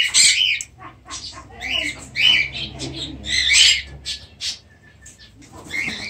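Parrots squawking: a run of loud, harsh calls in the first four seconds, then quieter, with one weaker squawk near the end.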